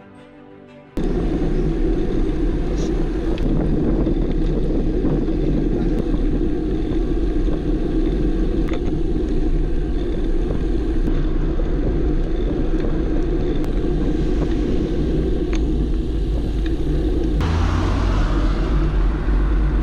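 Wind buffeting and rolling road noise on a road bike's handlebar-mounted camera while riding: a loud, steady rumble that starts abruptly about a second in. Near the end a brighter rushing noise swells on top of it.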